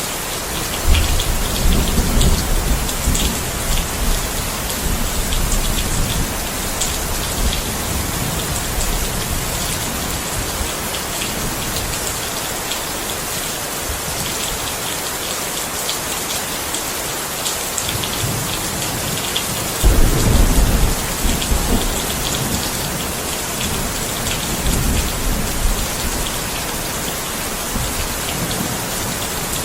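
Steady rain falling, an even hiss throughout, with low rumbles of thunder rolling in about a second in and again around twenty seconds in.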